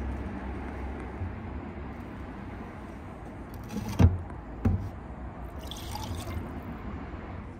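A glass measuring jug knocks twice as it is picked up, about four seconds in. Then a dark mix of petrol and engine oil is poured from the jug into a drinking glass, with a short splashing pour.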